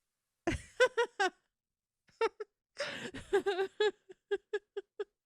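A woman laughing softly. A few short breathy syllables come first, then a quick run of short, even-pitched laughs in the second half.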